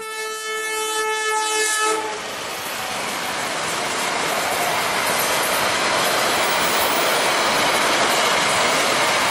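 A train horn sounds one steady chord for about two seconds, then the train runs on with a steady noise of wheels on the rails.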